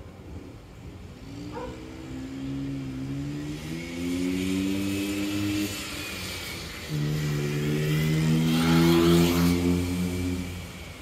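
Small engine of a homebuilt ride-on vehicle running under load and rising in pitch. It eases off a little past halfway, then comes back louder and pulls again before fading near the end.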